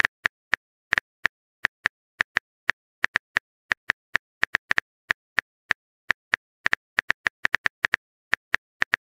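Phone keyboard typing sound effect: a run of short, sharp, irregular clicks, about four or five a second.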